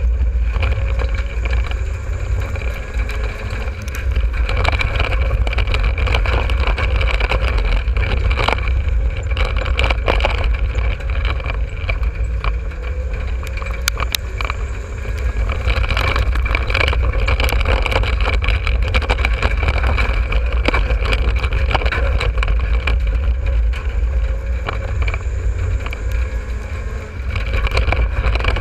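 Dirt-track race car's engine running hard at racing speed, heard from inside the car as a loud, steady rumble. It dips briefly three times, about twelve seconds apart.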